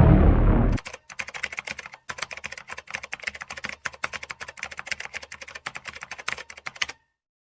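A loud noisy blast ends in the first second. Then come rapid, uneven clicks like keyboard typing, several a second, which cut off suddenly into dead silence near the end.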